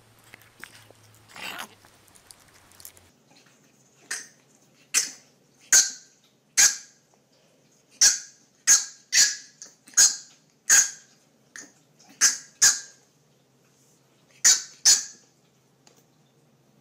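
French bulldog puppy yapping: about fourteen short, high-pitched barks, singly and in quick pairs, starting about four seconds in.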